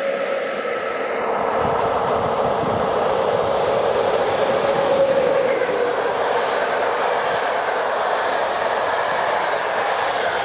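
Electric-locomotive-hauled passenger train passing close at speed: a steady noise of the locomotive and coaches running over the rails, growing louder over the first few seconds as the locomotive draws level, then holding as the coaches go by.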